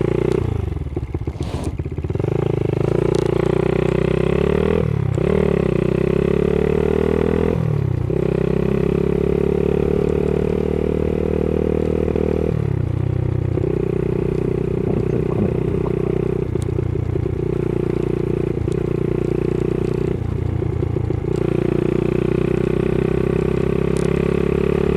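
Honda Monkey 110's small single-cylinder four-stroke engine pulling away and shifting up: the revs climb, drop sharply and climb again three times in the first eight seconds. It then cruises at steady revs, with a few brief throttle lifts where the note dips.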